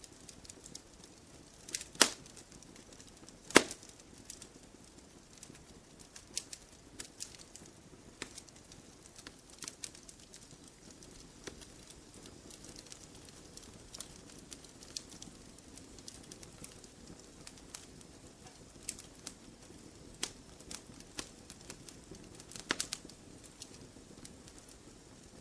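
Campfire logs burning: irregular crackles and pops over a low, steady hiss. Two sharp, loud snaps come about two and three and a half seconds in, and a burst of pops comes near the end.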